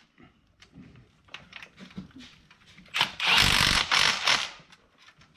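Light metallic clicks of parts being handled, then about three seconds in a handheld power tool runs in two or three short bursts, driving in bracket bolts.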